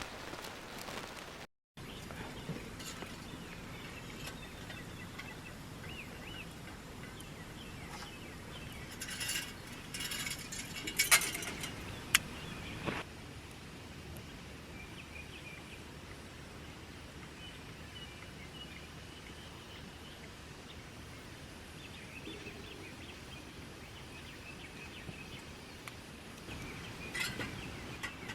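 Birds calling now and then over a steady outdoor background hiss. A few sharp clicks and rustles of handling come around the middle, the loudest of them about eleven and twelve seconds in, and a few more near the end.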